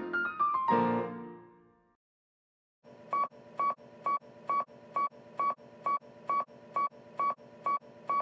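A short melodic tone sequence fades out. After a second of silence, an elevator signal beeps repeatedly at one pitch, about two short beeps a second, for roughly five seconds.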